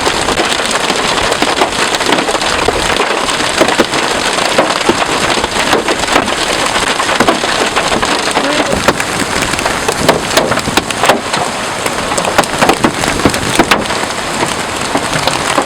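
Wind-driven hail and rain pelting a vehicle's roof and windows, a steady dense rattle with many sharp individual hits, heard from inside the car.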